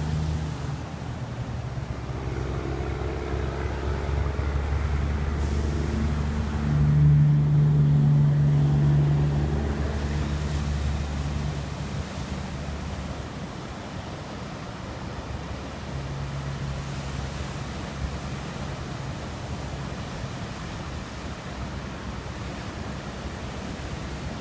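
Ocean surf breaking and rushing, a deep low rumble that swells to its loudest about seven seconds in and then slowly eases.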